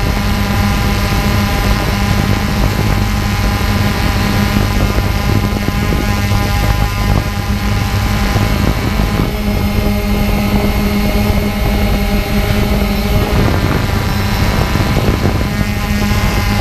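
Quadcopter drone's electric motors and propellers whirring steadily, heard up close from a camera mounted on the drone as it hovers, the pitch shifting slightly now and then.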